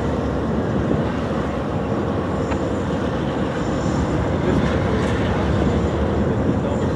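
Norfolk Southern train passing, a steady, unbroken rumble with a faint steady hum above it.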